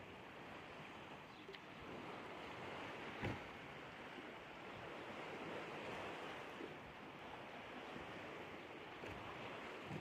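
Steady wind and river-water noise at a concrete riverbank, with one short knock about three seconds in.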